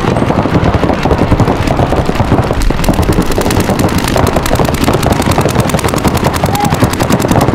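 Paintball markers firing fast streams of shots: a dense rattle of pops that settles into a quick, even string from about three seconds in.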